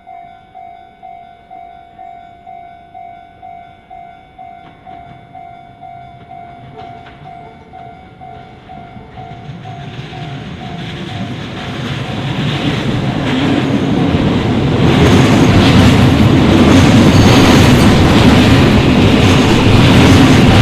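Japanese level-crossing warning bell ringing in a steady repeating ding a little under twice a second, then a Shin-Keisei electric train approaching and passing over the crossing. The train's rumble rises from about ten seconds in, becomes the loudest thing by about fourteen seconds and drowns out the bell.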